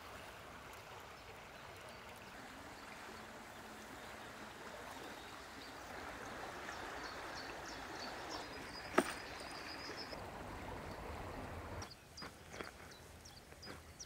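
Shallow river running steadily, with small birds chirping. One sharp click about nine seconds in; near the end the water sound drops away and a few light knocks follow.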